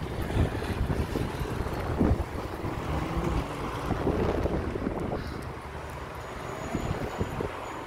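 Wind buffeting a phone's microphone over the steady rumble of road traffic.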